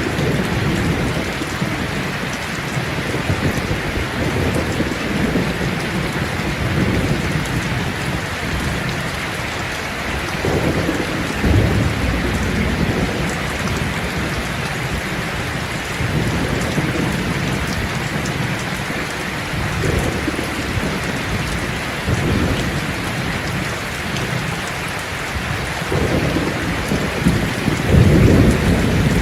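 Steady heavy rain with low rolls of thunder, one about a third of the way in and a stronger one near the end.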